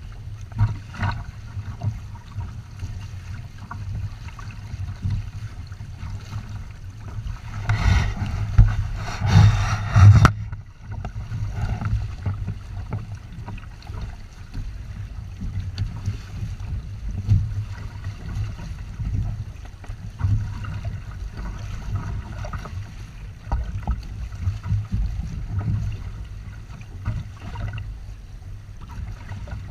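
Wind and water noise of a Windrider 17 trimaran under sail: a steady, gusting low rumble with a faint hiss of water. A louder rush of noise swells from about 8 to 10 seconds in and stops abruptly.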